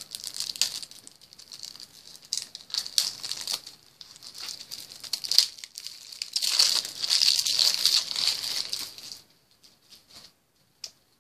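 Card deck's sealed wrapper crinkling and tearing as it is opened by hand: a run of crackling, busiest just past the middle, that stops about two seconds before the end.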